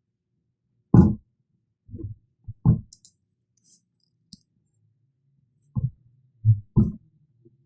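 Sparse background music: a few short, low plucked notes spaced irregularly, with a faint light shaker-like hiss in the middle.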